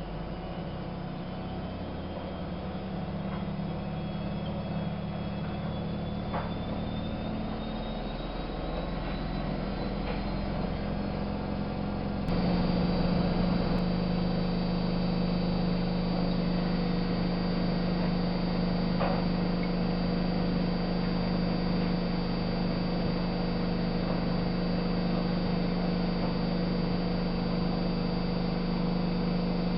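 Miele Novo Super W933 washing machine running, a steady motor hum with a faint whine rising in pitch. About twelve seconds in the sound steps up suddenly to a louder, steady hum with a high whine, as the machine changes to another stage of its programme.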